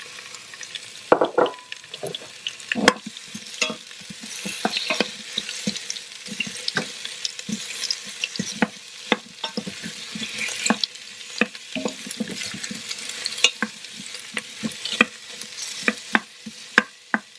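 Sliced onions sizzling in hot olive oil in a stainless-steel Instant Pot inner pot on its sauté setting, with a wooden spoon scraping and knocking against the pot as they are stirred.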